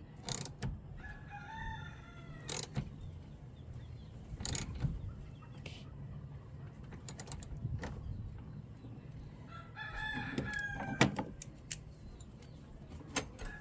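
A rooster crowing twice: once about a second in and again about ten seconds in. Sharp clicks and knocks are scattered between the crows.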